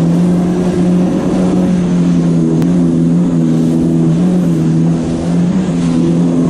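Jet ski engine running steadily at cruising speed, a steady droning note that wavers slightly in pitch, over the rush of spray along the hull.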